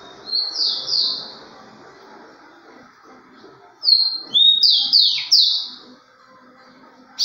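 Caged rufous-collared sparrow (tico-tico) singing. A short phrase of two or three high slurred whistles comes about half a second in, and a longer phrase of four or five downslurred whistles comes about four seconds in.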